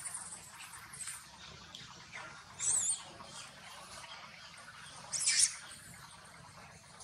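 Newborn macaque squeaking twice, short high-pitched wavering cries about two and a half seconds apart.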